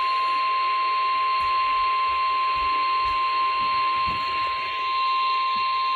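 Weather radio warning alarm tone: one steady, unbroken high tone over radio hiss. It is the attention signal that comes just before a National Weather Service severe thunderstorm warning is read.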